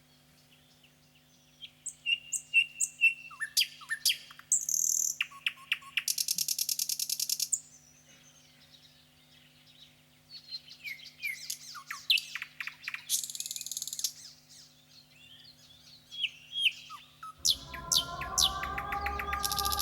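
Nightingale song: phrases of chirps, whistled notes and fast repeated-note trills separated by short pauses, over a faint steady hum. Sustained electronic music chords come in about 17 seconds in.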